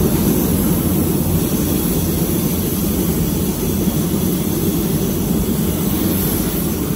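Paint spray booth's ventilation fans running with a steady, even rush of moving air.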